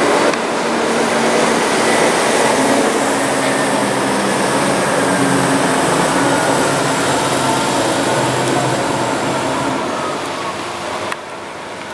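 Fire engine's diesel engine running hard as the truck pulls away and drives past, with a steady rush of engine and road noise. The level drops suddenly near the end.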